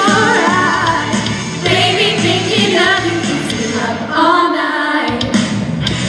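Pop music with a sung vocal line over steady accompaniment.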